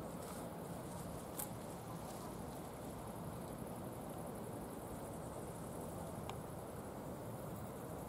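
Meadow insects chirring in a high, steady, fine-textured buzz over an even low rush of outdoor noise, with a couple of faint ticks.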